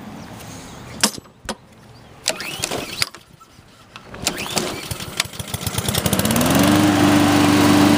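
Honda overhead-cam engine on a Husqvarna LC221A all-wheel-drive push mower being recoil pull-started from cold. It catches on the second pull about six seconds in, revs up and settles into a steady run.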